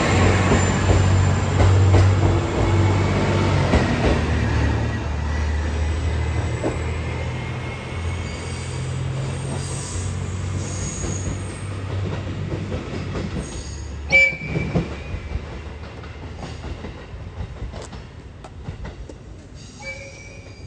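KiHa E130-series diesel railcar pulling away from the platform: its diesel engine drones low, shifting in steps, with faint wheel squeal, and the sound fades steadily as the train moves off. About two-thirds of the way through there is a short sharp metallic clank with a high ring.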